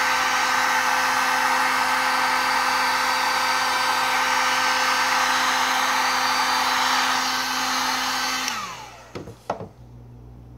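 A Harbor Freight electric heat gun blows hot air onto faded black plastic, a loud, steady fan whir with a steady hum. About eight and a half seconds in it is switched off and spins down, its pitch falling, followed by two brief knocks.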